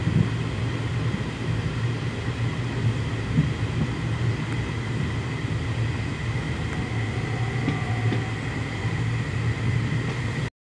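Passenger train running at speed, heard from aboard: a steady low rumble of wheels on the track with a thin steady whine above it. It cuts off suddenly near the end.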